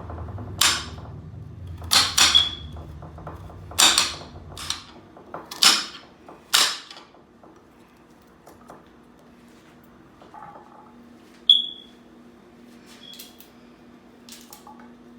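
Kitchen knife chopping carrots on a cutting board: about seven sharp chops, uneven and spaced about a second apart. The chopping stops about seven seconds in, and a single sharp metallic clink follows later.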